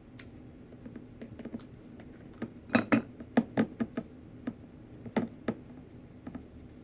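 Scattered light clinks and taps as a small glass vase is handled and turned while rope is glued around it, with a quick cluster of taps near the middle and a few more later. A faint steady hum runs underneath.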